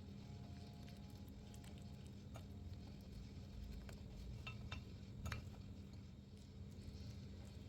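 A few faint, light clinks of kitchen utensils against dishware, some briefly ringing, over a low steady hum.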